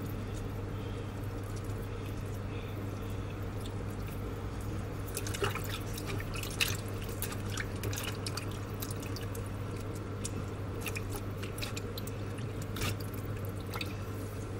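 Water dripping and splashing lightly in a bowl as hands rub and wash raw chicken pieces with lime halves. The small drips and splashes come mostly from about five seconds in, over a steady low hum.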